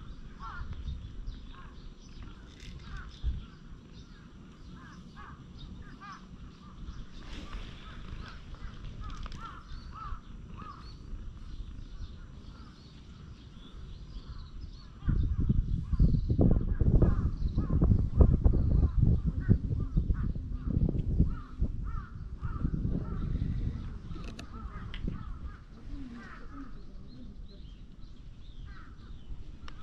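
Birds call over a quiet background. About halfway through, a run of rapid, fairly loud soft thumps begins as a hand pats a cat's lower back, and it eases off a few seconds before the end.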